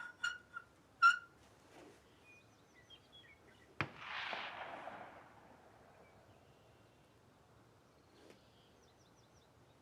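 A few sharp metallic clicks at the start, then a single sharp crack about four seconds in that trails off in a brief hiss, with small birds chirping now and then.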